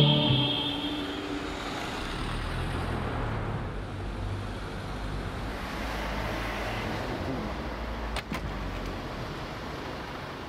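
Steady road-traffic noise of a city street, with two quick clicks about eight seconds in.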